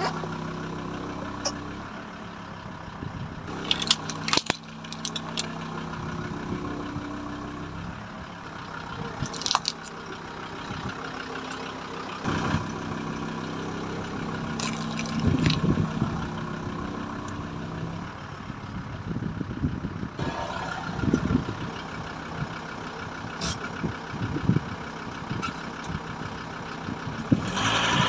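Car engine idling as the car creeps forward, its tyre rolling over and crushing small objects. Scattered sharp cracks and several low thumps sound over the engine's steady hum.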